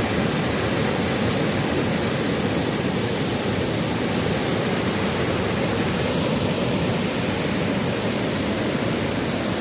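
Waterfall rushing, a steady unbroken roar of falling water.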